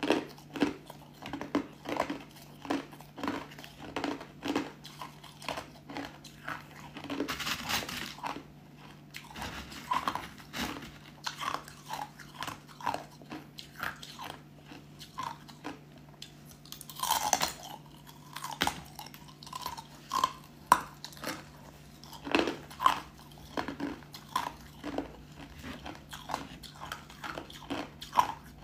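Thin, flaky pieces of ice being bitten and chewed close up: a rapid, irregular series of crisp crunches, with a few louder bursts of crunching.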